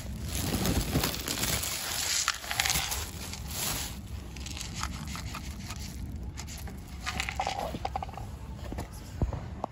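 Rustling handling noise as dry cat food is shaken from a paper cup onto paving stones, loudest for the first few seconds, then quieter with scattered small clicks.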